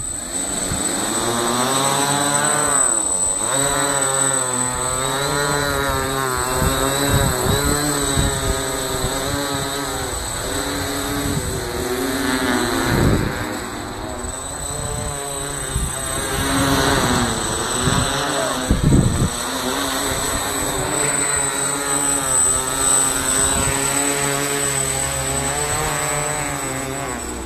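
Electric remote-control quadcopter's four propellers buzzing as it lifts off and hovers, the pitch wavering up and down continuously as the motor speeds change.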